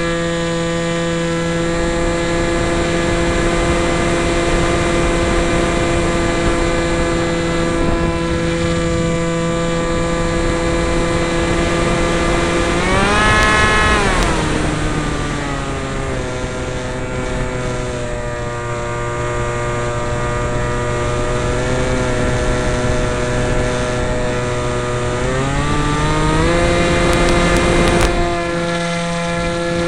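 Motor of a depron foam RC model F-22, heard from a camera on board in flight: a steady whine over rushing air. The pitch jumps up briefly about halfway through, then settles lower for about ten seconds as the motor slows, and climbs back up a few seconds before the end.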